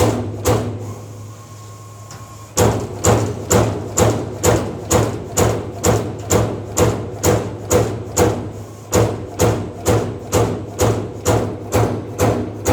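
Servo-electric CNC turret punch press punching sheet metal in a steady rhythm of about three strokes a second, over a steady machine hum. The strokes pause for about two seconds just after the start, then resume.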